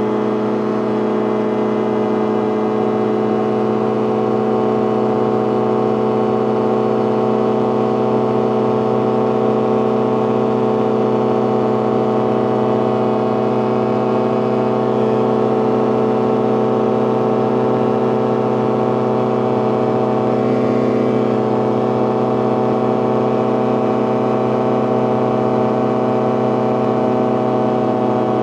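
CGS Hawk ultralight's engine and propeller running at steady flight power, a constant-pitch drone heard from inside the cockpit.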